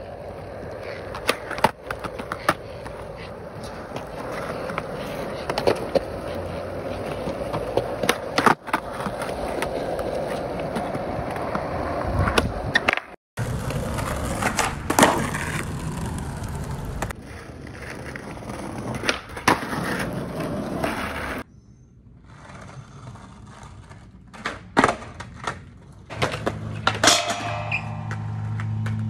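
Skateboard wheels rolling on concrete, broken by repeated sharp clacks of the tail popping and the board landing and slapping the ground. Near the end the board slides briefly along a metal flat bar with a scraping ring.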